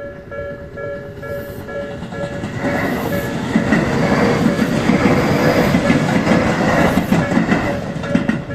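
A Japanese railroad crossing's warning bell ringing about twice a second, then a Tobu Utsunomiya Line train passing over the crossing from about two and a half seconds in. Its wheels rumble and clatter over the rail joints for some five seconds and drown out the bell, which comes through again as the train clears near the end.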